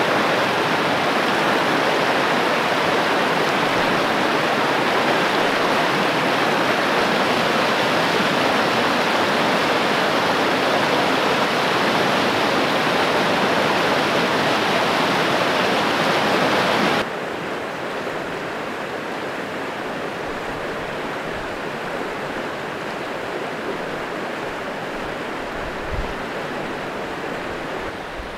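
Tacoma Creek rushing over logs and rocks in shallow riffles, a steady rush of water. About two-thirds of the way through it drops to a softer, duller rush.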